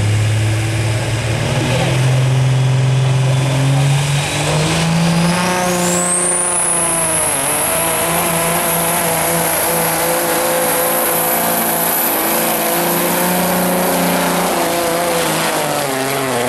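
Cabover semi truck's diesel engine under full load pulling a weight-transfer sled. Its note climbs in pitch over the first few seconds, and a high turbo whine rises about five seconds in, then holds steady while the engine pulls hard. The sound shifts near the end as the truck passes close by.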